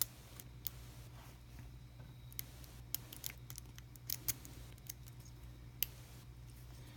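Faint, irregular clicks and scrapes of a lock pick working the pin stacks of an Abus Titalium TI12 euro cylinder held under tension, with a few sharper clicks, over a steady low hum.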